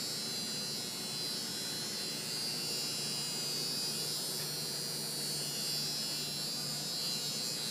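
Steady running machinery: an even high-pitched whine over a low hum, holding level throughout.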